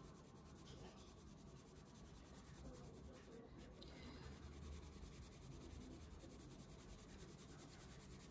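Faint scratching of a Faber-Castell coloured pencil shading and blending on paper.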